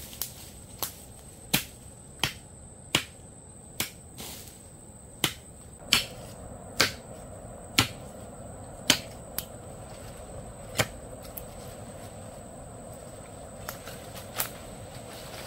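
A series of sharp knocks or chops, roughly one a second at an uneven pace, pausing after about eleven seconds with two more near the end.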